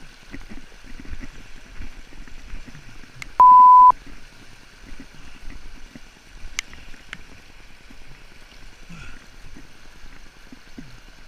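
A loud, steady, high-pitched censor bleep lasting about half a second, a few seconds in, over the low running water of a river with a few faint knocks.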